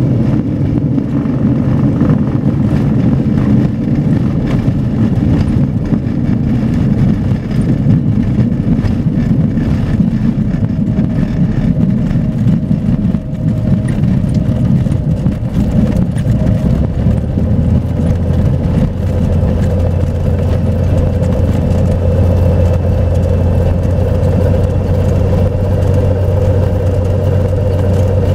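Light aircraft's piston engine and propeller running at low power while taxiing on a grass airstrip, heard from inside the cockpit. The sound is uneven at first and settles into a steadier drone partway through.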